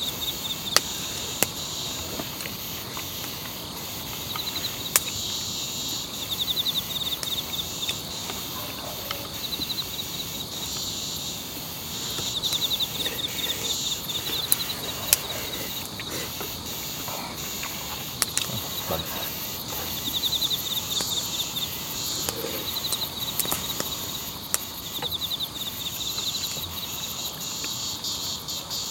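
Night insects, crickets among them, chirping in short pulsed trills that come back every few seconds over a steady high-pitched insect drone. A few sharp clicks of chopsticks against a wooden bowl break in now and then.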